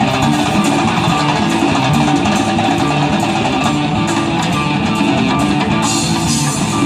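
A live band playing, with guitar prominent.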